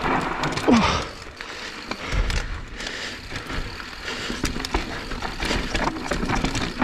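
Mountain bike descending a loose dirt trail: knobby tyres rolling and skidding over dirt, with frequent rattles and knocks from the bike over bumps, and gusts of wind rumble on the microphone.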